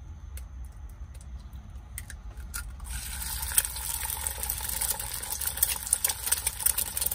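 An egg tapped on a small non-stick pan, a few light clicks. About three seconds in it drops into hot oil and begins frying with a dense, crackling sizzle that grows louder.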